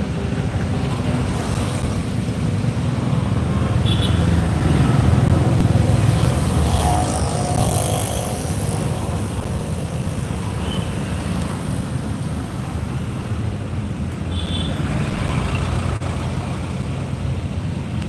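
Steady road traffic noise: a low rumble of passing vehicles, louder for a few seconds about a quarter of the way in.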